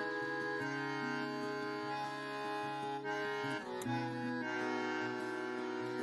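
Background music of held instrumental chords that change every second or so.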